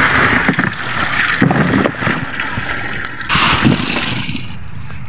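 Freshly caught tamban sardines and seawater pouring and splashing out of a mesh net into a styrofoam fish box. The wet rush stops shortly before the end, leaving a low steady hum.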